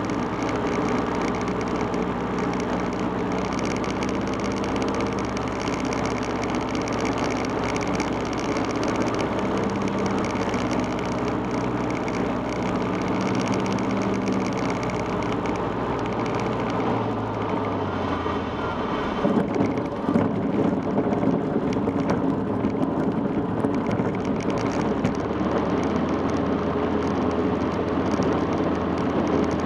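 Cessna 150's four-cylinder engine and propeller heard from inside the cabin, running at low landing power through the flare and touchdown. About two-thirds of the way through, the engine note drops lower. Uneven rattling and bumping then comes in as the wheels roll along the runway.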